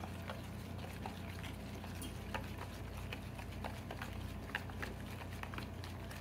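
Wooden spoon stirring thick mayonnaise dressing in a plastic bowl, with frequent irregular light clicks and taps of the spoon against the bowl, over a steady low hum.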